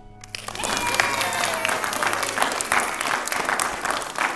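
Congregation applauding: many hands clapping together, starting suddenly just after the start and carrying on steadily.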